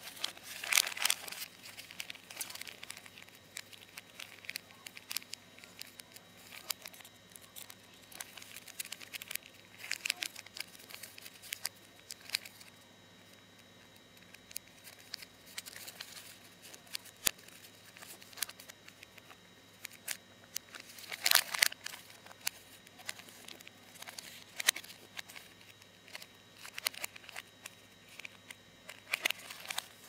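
Origami paper crane being handled and unfolded: irregular paper crinkles and rustles, with several louder bursts of crinkling, over a faint steady hum.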